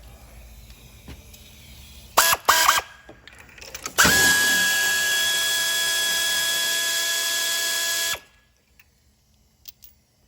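Handheld power tool unscrewing spark plugs: a few short trigger blips about two seconds in, then the motor runs steadily for about four seconds and stops abruptly.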